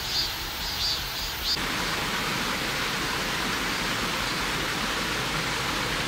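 Mountain stream water flowing: a steady rushing hiss that starts suddenly about one and a half seconds in and then holds even.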